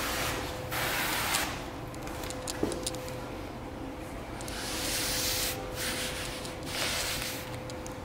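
Trigger spray bottle spritzing and a microfiber towel wiping a car's door glass: several hissing swishes about a second long. A faint steady hum runs underneath.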